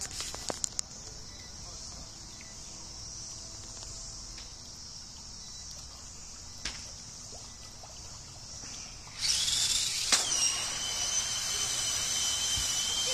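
Faint steady insect buzz for about nine seconds, then a remote-control amphibious monster truck's electric motor starts with a sudden, loud, steady high-pitched whine and churning water as the truck drives across the swimming pool.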